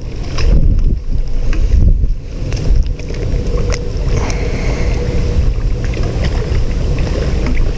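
Wind buffeting the microphone in a steady rumble, with a faint steady hum underneath and a few small clicks.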